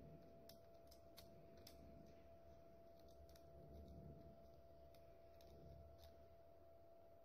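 Near silence with a few faint, sharp little clicks: a plastic N-gauge tram model being handled and set onto its track by hand. A faint steady hum sits underneath.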